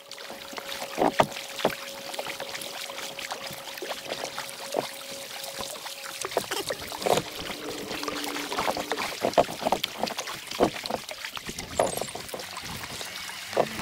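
Sea kayak paddle blades dipping into and splashing through the water, stroke after stroke, in an irregular run of splashes and drips.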